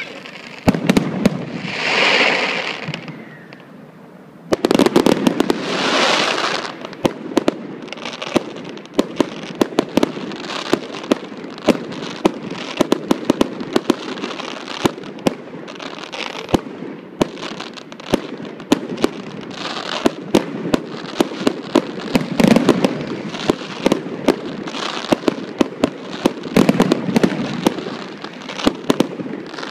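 Aerial fireworks display: a rapid, continuous stream of sharp bangs and crackles from bursting shells, with two longer hissing rushes, one about two seconds in and another around six seconds.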